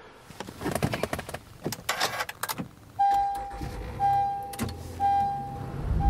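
Rustling and clicks of handling, then a Honda Ridgeline's warning chime sounding three steady beeps, about one a second, from about halfway.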